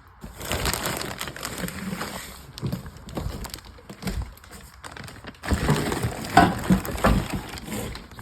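Plastic bag rustling and crinkling as a set of stainless steel headers is handled inside it, with louder knocks and rattles of the metal tubes about six to seven seconds in.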